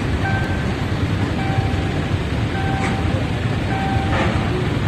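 Freight train of tank wagons rolling through a road level crossing with a steady rumble, while the crossing's warning alarm sounds a repeating tone about once a second. A couple of short knocks come in the second half.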